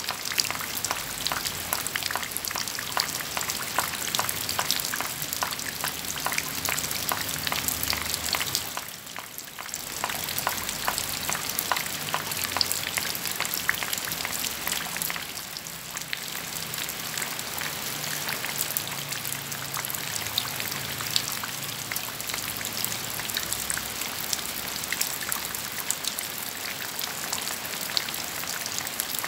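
Rain falling steadily, a dense patter of drops tapping on surfaces, easing briefly about nine seconds in.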